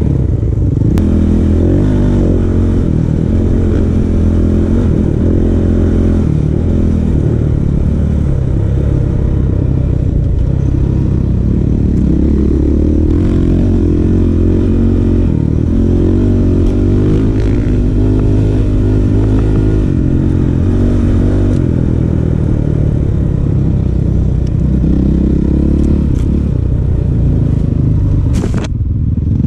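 450 cc single-cylinder four-stroke dirt bike engine running under way, its pitch rising and falling with the throttle, with a brief dip near the end.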